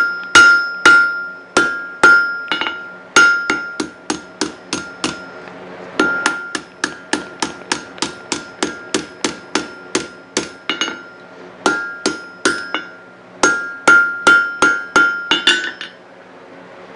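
Blacksmith's hammer striking hot steel on an anvil: runs of blows, roughly two to three a second with short pauses between runs, each blow ringing with a clear tone, stopping about a second before the end. A low steady hum runs underneath.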